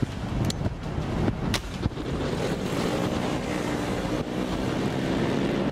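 Vehicle engine running with road noise and wind buffeting the microphone, a steady low hum building in the second half, and a few sharp clicks in the first two seconds.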